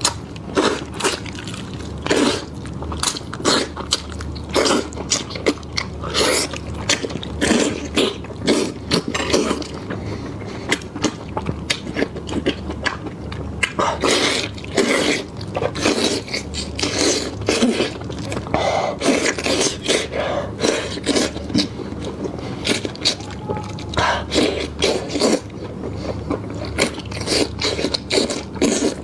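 A person chewing and biting into spicy lamb chops close to the microphone: irregular wet smacks and crunchy clicks, several a second, over a faint steady hum.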